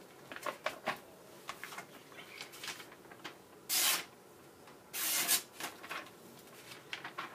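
Opinel folding knife slicing in a sharpness test: small clicks and rustles, then two short scraping cuts a little over a second apart, about halfway through. The blade is judged not very sharp.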